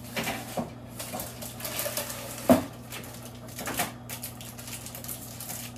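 A baking tray being slid into a countertop toaster oven and set on its wire rack: a series of light knocks and clicks, with one louder clank about two and a half seconds in, over a steady low hum.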